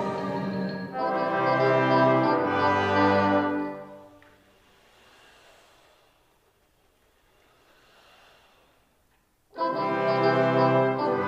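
Orchestra playing a loud, sustained chord that cuts off about four seconds in and dies away to near silence. A loud chord enters again near the end.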